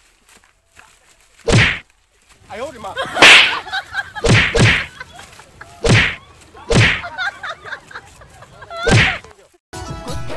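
Sharp slap and punch sound effects, about seven hits spaced irregularly, for a staged comic beating. Near the end the hits stop and a steady chirring of insects begins.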